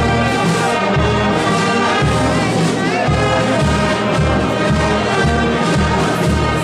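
Brass band playing a march, with a steady pulsing beat in the bass.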